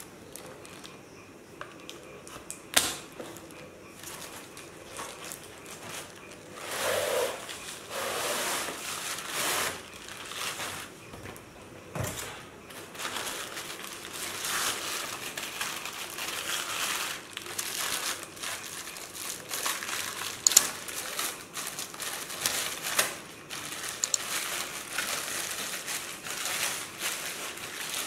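Plastic protective wrapping crinkling and rustling as ceiling fan blades are pulled from their cardboard box and unwrapped, with a few sharp knocks of handling.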